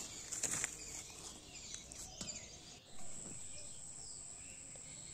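Quiet rural outdoor ambience: faint bird chirps and a steady high-pitched insect drone that comes in about three seconds in, with a few faint clicks near the start.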